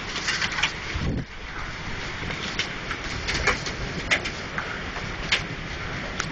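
Heavy rain and hail pouring down: a steady rush with scattered sharp knocks of hailstones striking hard surfaces, and a dull thump about a second in.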